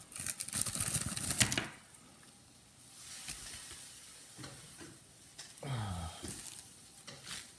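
Plastic mailer bag crinkling and rustling as it is handled, dense crackling for about the first two seconds, then only faint rustles and a few light clicks.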